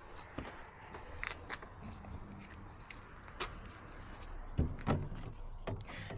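Handling noise from a spandex cover being pulled over and hooked onto a velomobile's plastic bodywork: scattered light clicks and ticks, with two dull thumps about three-quarters of the way through.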